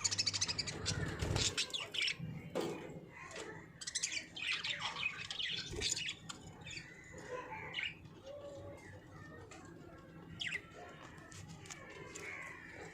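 Budgerigars chirping and warbling with quick, overlapping calls. They are busiest and loudest in the first half, then softer.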